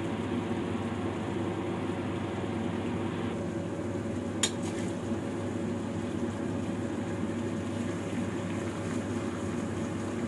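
Giant tiger prawns cooking in sauce in a pan, a steady sizzling noise over a low steady hum, with one sharp tap about four and a half seconds in.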